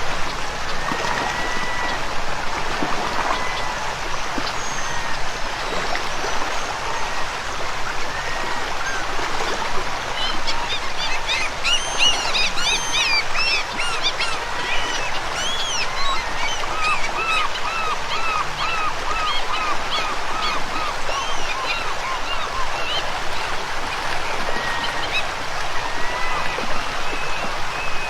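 Rushing river water with birds calling over it. In the middle there is a cluster of high, chirping calls, followed by a quick run of about three calls a second.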